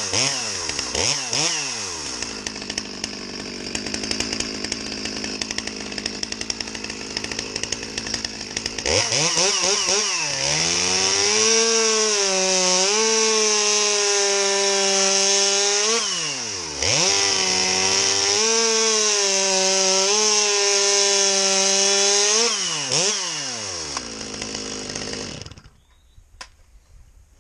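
Stihl MS 200T two-stroke top-handle chainsaw with a stock muffler that has had an extra hole drilled in it. It is blipped and idles, then makes two full-throttle cuts through a log, its pitch sagging and recovering as the chain loads in the wood. It comes off the throttle briefly between the cuts, then winds down and cuts out near the end.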